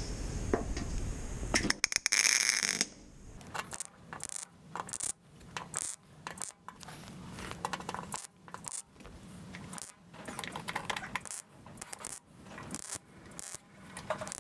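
MIG welder laying a string of short tack welds along a sheet-metal body panel seam: irregular crackling bursts, each under a second, with short gaps between them. A steady noise fills the first couple of seconds.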